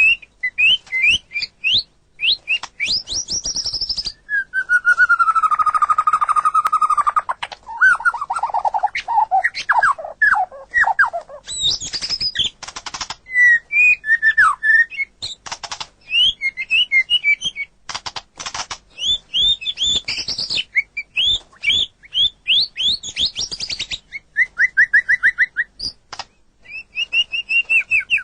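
Murai (white-rumped shama) singing loudly: a varied run of clear whistles, quick trills and pitch slides, broken by sharp rattling clicks, with a long, slowly falling whistle about four seconds in.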